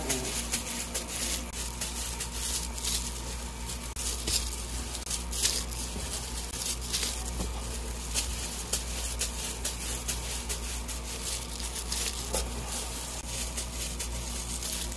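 Kitchen background noise: a steady low hum with scattered small clicks and crinkles throughout.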